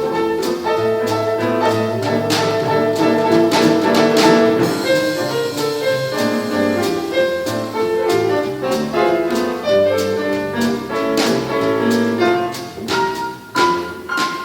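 A swing jazz band playing up-tempo, ending the passage on a few sharp accented chords.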